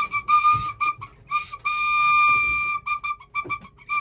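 A brass whistle pipe is blown in a string of short toots, all on about the same high note. One note in the middle is held for about a second.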